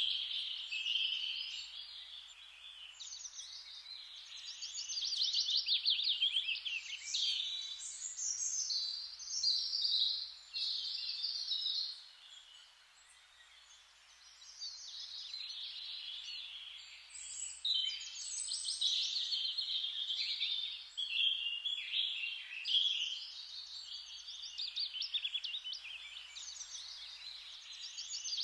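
Songbirds singing in a continuous chorus: overlapping chirping phrases and rapid trills, dropping to a brief lull about halfway through before picking up again.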